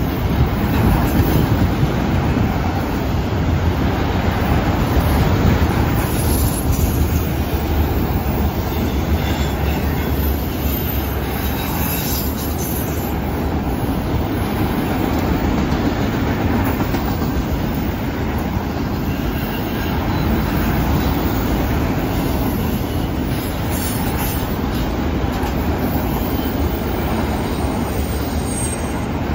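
Freight train of autorack cars rolling past, a steady rumble of steel wheels on the rails.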